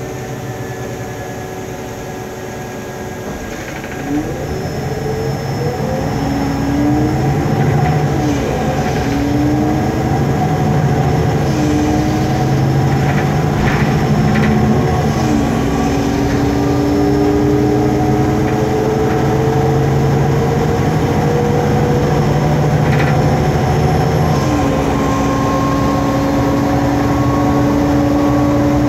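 Interior of an articulated MAN Lion's City CNG bus pulling away and accelerating: its MAN E2876 gas engine and ZF Ecolife automatic gearbox whine up in pitch and drop at each of several gearshifts, then settle into a slowly rising cruise near the end. Under it runs the bus's noisy fan, a loud steady hum and whine.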